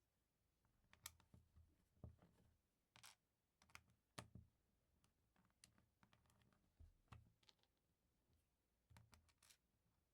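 Faint, irregular clicks and taps of plastic LEGO bricks and plates being handled and pressed together.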